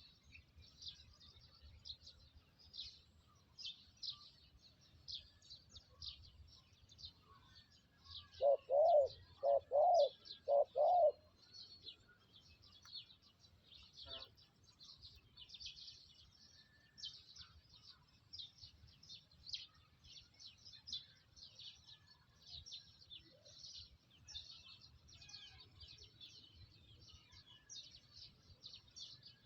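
A spotted dove cooing once, a phrase of four low notes about eight seconds in, over small birds chirping continuously at high pitch.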